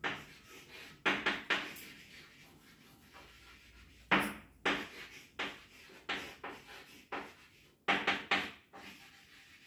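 Chalk tapping and scraping on a blackboard as an equation is written: a series of irregular sharp taps and short scratchy strokes.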